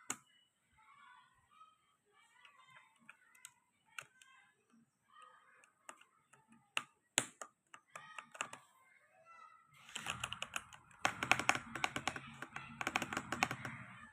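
Keys of a Thunderobot K98 keyboard being pressed: scattered single keystrokes at first, then rapid continuous typing for the last four seconds or so.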